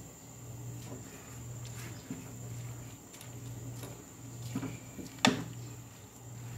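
Wooden spoon stirring and lifting shredded green papaya in a bowl: soft scrapes and light clicks, with one sharp knock of the spoon against the bowl about five seconds in. A steady low hum runs underneath, breaking off now and then.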